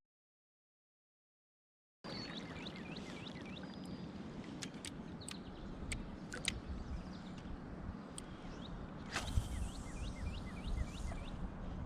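Silent for the first two seconds, then outdoor ambience: a steady low rushing noise with a songbird repeating quick runs of short down-slurred chirps. A few sharp knocks cut through, the loudest about nine seconds in.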